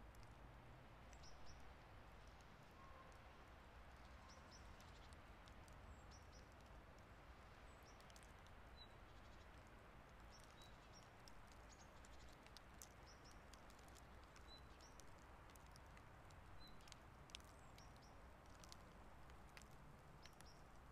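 Faint winter outdoor ambience during light snowfall: a low steady rumble with soft scattered ticks and occasional short high chirps of small birds.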